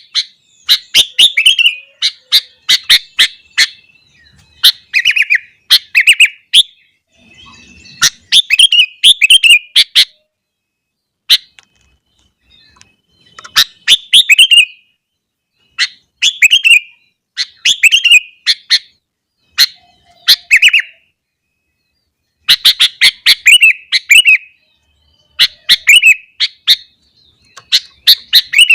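Sooty-headed bulbul singing: short, bubbly phrases of a few quick notes, repeated every second or two, with a pause of a couple of seconds about halfway through.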